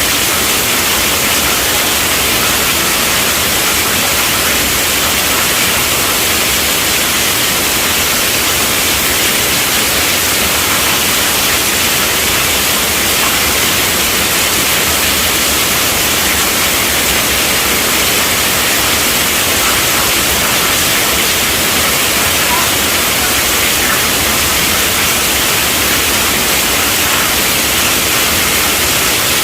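Steady rainfall: a dense, even hiss of rain that stays constant throughout.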